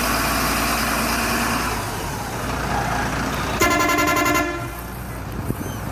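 Steady vehicle engine noise, then about three and a half seconds in a single short horn honk lasting under a second.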